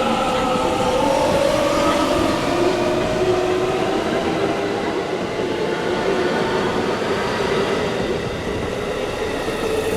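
JR West local electric train moving through the station: its inverter and traction motors give several pitched whines that slide and step in pitch over a steady rail running noise.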